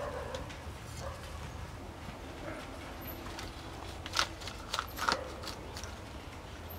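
Quiet handling sounds: a few light clicks and taps about four to five seconds in as chilies and a kaffir lime leaf are set among snail shells, over a steady low hum.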